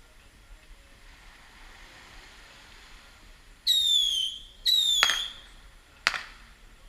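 Two whistling fireworks going off a second apart, each a shrill whistle falling in pitch for under a second. A sharp bang comes as the second whistle ends, and another about a second later.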